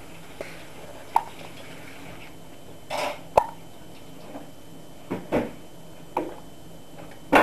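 A baby hiccuping: about seven short, sharp hics at uneven gaps of half a second to two seconds.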